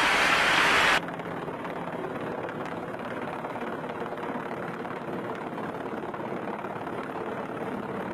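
A military helicopter hovering overhead: steady rotor and engine noise, coming in about a second in when louder music cuts off abruptly.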